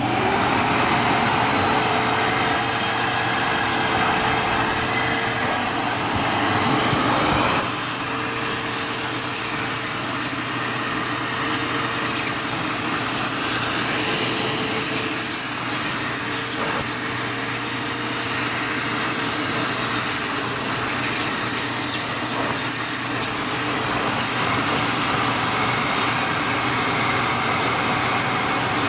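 Vacuum cleaner switched on and running steadily with a whine that wavers a little, sucking grime out of the cracks between rough wooden floorboards.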